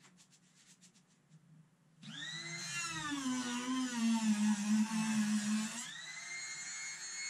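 Electric laminate trimmer switching on about two seconds in, its high whine rising to speed. The pitch then drops and wavers under load as the bit trims the excess laminate flush along the cabinet edge. Near the end the bit comes free and the whine climbs back to a steady, higher free-running pitch.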